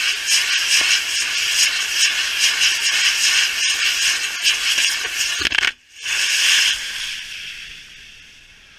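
Rocket motors of a girandola, a bamboo-framed flying firework wheel, burning with a loud, pulsing hiss, heard from a camera riding on the wheel. The sound cuts out almost completely for a moment just before six seconds in, comes back briefly, then fades away toward the end.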